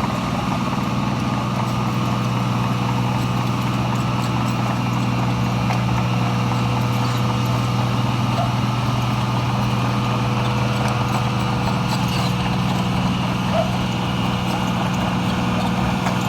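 Diesel engine of a 2004 Wirtgen W1000F cold planer running steadily at idle, an even low rumble with a constant hum.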